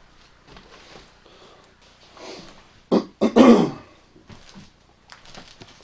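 A person coughs twice in quick succession about three seconds in, a short cough and then a longer, louder one. Around it, faint footsteps and rustling over debris.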